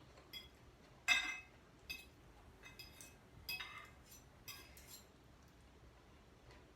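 Cutlery clinking against plates and glassware at a meal: a handful of light, short clinks with a brief ring, the first about a second in the loudest.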